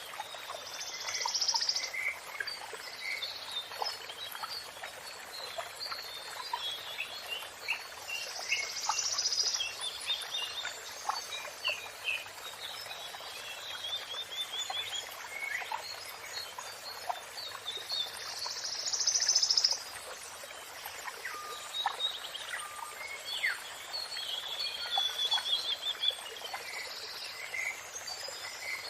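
Several songbirds singing and calling at once: sharp chirps, quick trills and a louder buzzy call that comes back every eight to ten seconds, over a steady rush of water.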